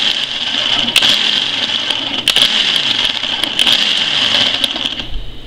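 A small electric kitchen appliance motor running steadily with a high, noisy whir, easing off near the end.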